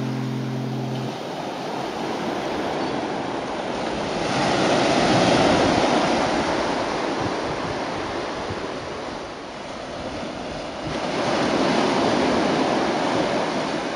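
Small waves breaking and washing up a sandy beach, the surf swelling twice, about four seconds in and again about eleven seconds in. A held musical note ends about a second in.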